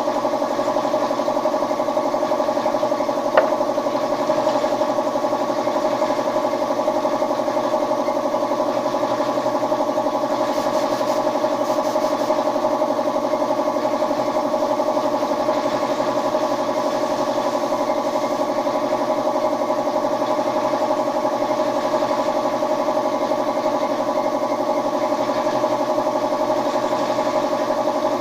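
Steady, even hum of a running motor, unchanging throughout, with a single sharp click about three seconds in.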